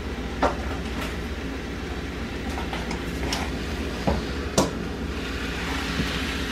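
A steady mechanical hum, with a few light knocks of cookware on the stovetop: one about half a second in and two close together a little past the middle.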